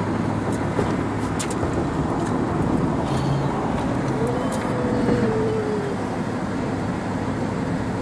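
Steady engine and road noise inside a moving vehicle. A child's snore comes through as a faint whistle that rises and falls for about a second and a half, around halfway through.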